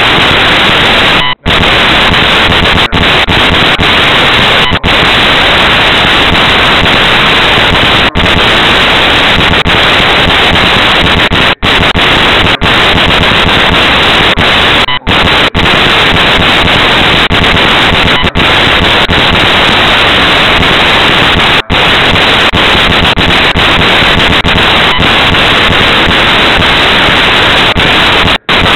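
Loud, steady static hiss from a cheap camera's overloaded audio, broken by brief dropouts every few seconds.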